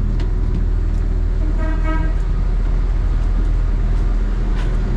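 Passenger ferry's diesel engines running with a steady low rumble, and a short single horn toot about two seconds in.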